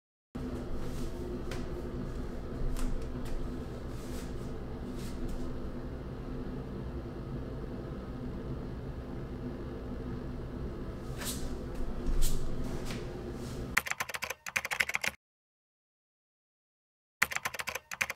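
Room tone with a steady low hum and a few scattered clicks, then near the end two short bursts of rapid typing-like clicking with dead silence between them.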